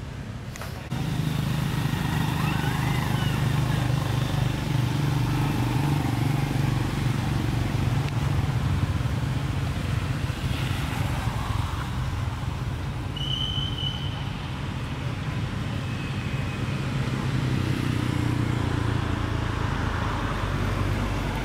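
A motor vehicle's engine running with a steady low drone that starts abruptly about a second in, with a brief high chirp past the middle.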